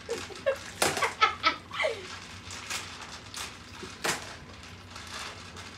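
Water splashing and slurping in a plastic bowl as a face is pushed in to fish out marbles by mouth, in irregular sharp splashes with short sounds between that drop in pitch.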